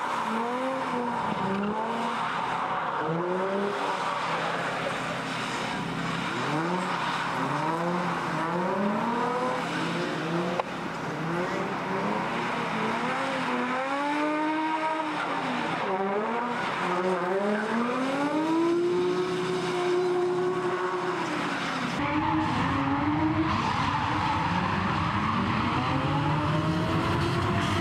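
Drift cars sliding in tandem, their engines revving up and down in quick swoops, with one long held rev about two thirds through, over the steady hiss and squeal of sliding tyres. About three quarters of the way through, the sound cuts to another tandem run of the same kind.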